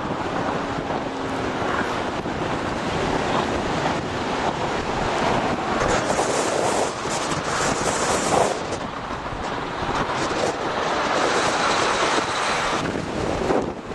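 Strong gusting wind buffeting the microphone: a loud, even rush of noise that swells with gusts about six to eight seconds in and again near the end.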